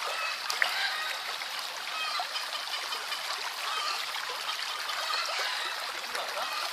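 Shallow forest stream trickling and splashing steadily over rocks, with one sharp click about half a second in.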